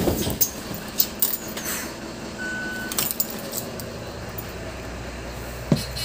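Interior of a Mercedes-Benz Citaro O530 city bus: steady low engine rumble with clinks and rattles of the body and fittings, and one short high beep about two and a half seconds in.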